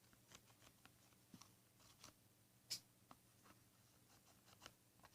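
Faint scratching and soft clicks of a felt-tip pen drawing an outline on a sheet of plastic, one click a little louder near the middle.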